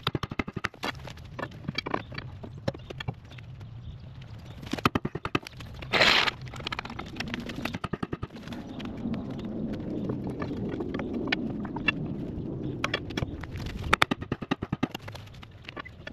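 Steel pry bar working the track frame of a Caterpillar 287C compact track loader loose on its axle: runs of quick metallic clicks and knocks, with a brief louder grating noise about six seconds in.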